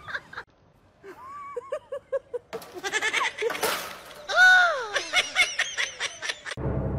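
A small animal crying out in a series of quavering, pitched calls. The loudest is a long cry that rises and then falls, about four and a half seconds in.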